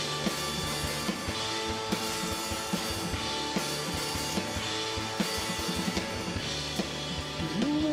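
Rock band playing an instrumental passage without vocals: electric guitars over a drum kit, with a steady beat.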